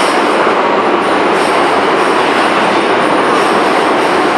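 E259 series Narita Express electric train pulling into an underground platform, a loud steady rumble of its wheels on the rails. Over it runs a faint high whine, the Hitachi IGBT-VVVF inverter under electric braking.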